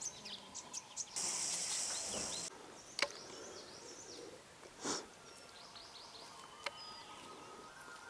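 Wild birds chirping and calling in short, high notes in a Himalayan forest. A loud high hiss breaks in about a second in and stops after about a second, and there are a few sharp clicks and a short thump.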